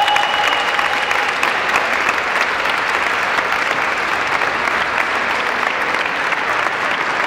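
Audience applauding steadily after a dance performance, while the music's last held note fades out about a second in.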